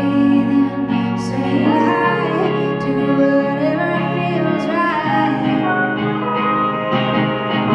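Live country-folk song: a woman singing over guitar accompaniment.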